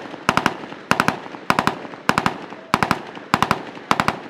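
Automatic gunfire in short bursts of three or four rapid shots, a burst about every 0.6 seconds, each trailing off in an echo.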